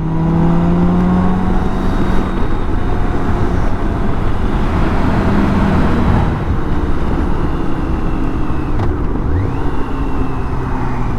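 BMW K1600 GTL's inline-six engine running on the move, under steady wind rush. The engine note dips briefly and picks up again about nine seconds in.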